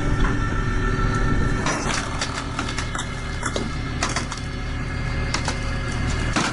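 Engine-powered wood-processing machinery running steadily, with frequent sharp knocks and cracks of wood being worked.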